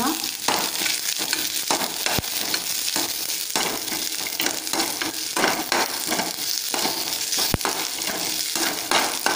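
Garlic cloves, shallots and ginger sizzling in a little oil in a kadai while a spatula stirs and scrapes them around the pan, with irregular scraping strokes over a steady hiss. Two sharp clicks come partway through.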